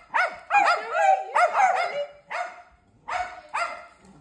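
Small dogs barking in a run of short, high-pitched yips, about eight in four seconds, fewer and fainter near the end: excited barking at feeding time.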